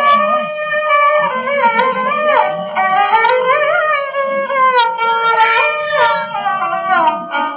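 Background music: a song with a high voice singing a gliding melody over a plucked-string accompaniment.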